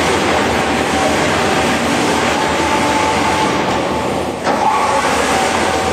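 Universal shredder with two 30 kW electric motors grinding bearing steel chips through its fitted screen: a loud, steady grinding noise that dips briefly about four and a half seconds in.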